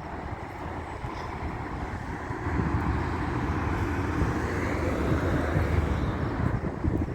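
Outdoor road traffic noise: a vehicle passes, swelling about two and a half seconds in and dropping away near the end.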